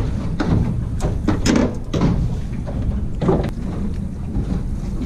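Steady low rumble of the boat with wind on the microphone, broken by a handful of short knocks and slaps as a large snapper is handled on the deck mat.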